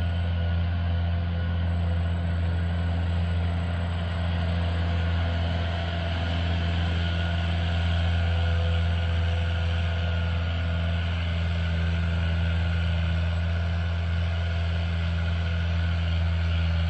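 A heavy vehicle's engine running at a steady low drone, with no change in speed.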